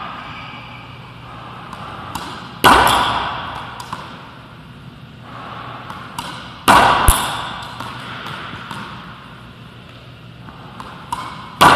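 Racquetball forehand drives: the racquet strikes the ball hard three times, about four seconds apart, each hit ringing on in the enclosed court. Lighter taps of the ball bouncing on the wooden floor come between the hits.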